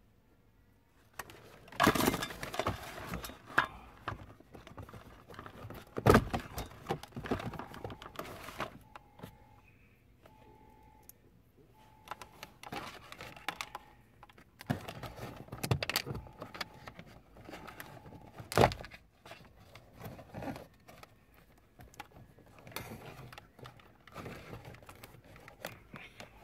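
Hands working wiring and small plastic connectors under a car dashboard: irregular rustling and clicking with a few sharp knocks. A faint beep repeats on and off through the middle.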